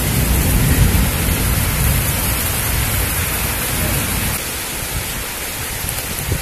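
Rain hissing steadily during a thunderstorm, with a low rumble of thunder that dies away about four seconds in.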